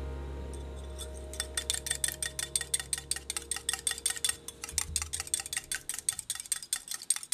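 Egg being beaten in a small ceramic ramekin with a tiny utensil: rapid, even clicking of the utensil against the bowl, several strokes a second, starting about a second in.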